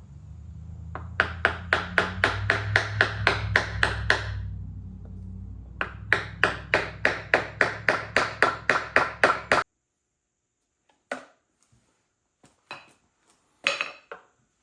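Sharp taps on a block of wood, driving a new input oil seal into a Bush Hog RZ60 rotary cutter gearbox housing. There are two quick runs of about a dozen even taps, roughly four a second, over a low hum that stops suddenly, then a few single taps near the end.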